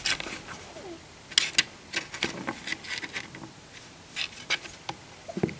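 A kitten's paws scratching and tapping at a round cardboard scratcher toy: irregular scratches and light knocks, the loudest a pair about a second and a half in.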